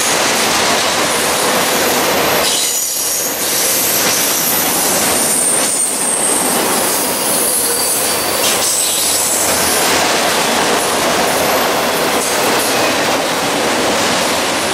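Freight train of autorack cars passing close by at speed: a steady loud rush of steel wheels on rail, with thin high wheel squeals above it.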